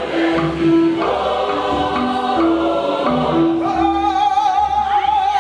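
Church choir singing gospel music over a steady low beat; about three and a half seconds in, a single high note with a slight waver is held to the end.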